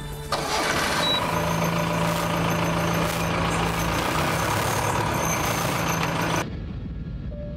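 Jeep engine running loudly with a steady low hum. It comes in suddenly just after the start and cuts off sharply near the end.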